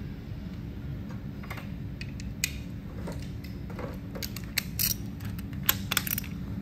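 Hand ratchet clicking and metal tools clinking while rocker arm bolts are loosened on a V8 cylinder head, as scattered sharp clicks that grow busier in the second half. A steady low hum runs underneath.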